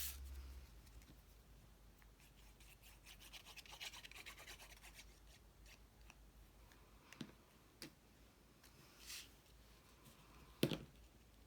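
Cardstock rubbing and sliding against cardstock as a glued piece is pushed into position, a quick run of scraping strokes, followed by a few light taps and one sharper tap or knock near the end.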